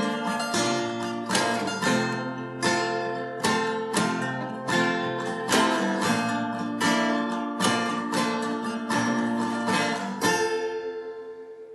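Acoustic guitars strumming chords in a steady rhythm. The last chord, about ten seconds in, is left to ring and fade out, ending the song.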